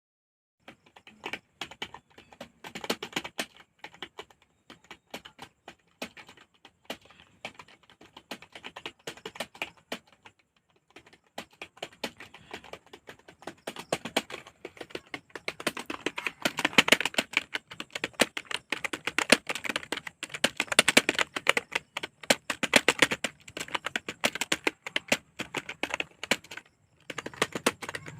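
Rapid typing on a computer keyboard: a dense run of key clicks with a short break about ten seconds in, getting faster and louder about halfway through.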